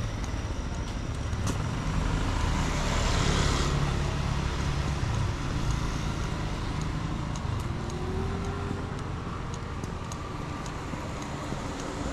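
Street traffic: a motor vehicle runs past close by, loudest a couple of seconds in, with a brief hiss at its peak, over a steady low rumble of road noise.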